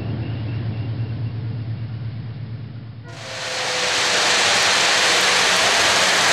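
O-gauge three-rail model train, a diesel locomotive pulling freight cars, rolling round a curve of track: a steady rush of wheels on rail that comes in about three seconds in and grows louder as the train nears. Before it there is a fading low hum.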